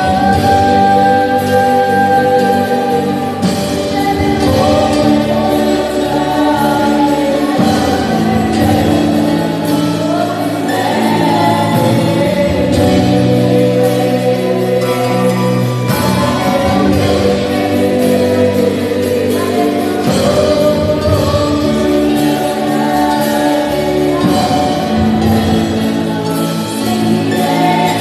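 Church worship music: voices singing over a band playing long, held chords.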